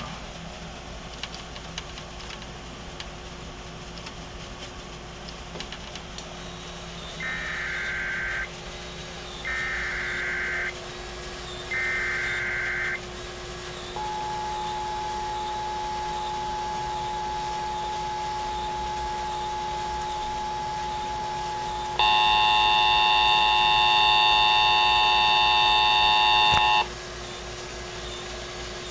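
Emergency Alert System transmission over FM radio. Three short warbling bursts of SAME digital header data come about two seconds apart, then a steady single tone for about eight seconds, then a louder two-tone attention signal for about five seconds, all over radio hiss with a faint hum.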